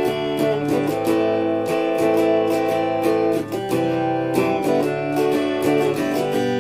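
Stratocaster-style electric guitar strumming a chord progression, with quick repeated strokes and the chord changing every second or so.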